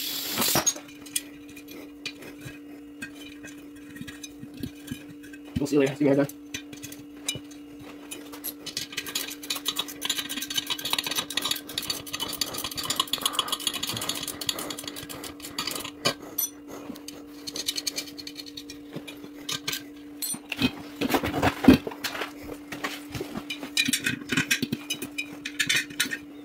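Scattered metal clinks and taps as hands work the parts of a two-piece ATV rim, with a couple of louder knocks, over a steady low hum.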